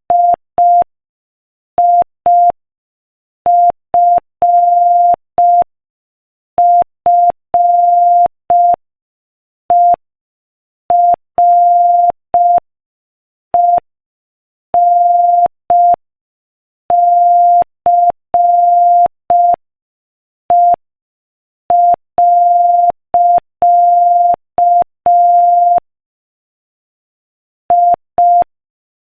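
Morse code at 5 words per minute: a single steady mid-pitched beep keyed on and off as short dits and longer dahs, with silences between letters and longer pauses between words.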